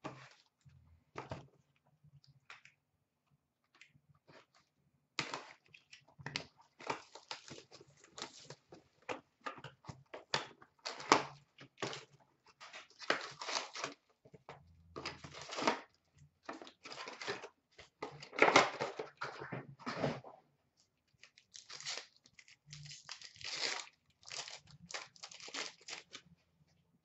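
An SP Authentic hockey card box being torn open by hand and its card packs ripped and handled. Irregular papery tearing and crinkling begins about five seconds in, after a few faint clicks.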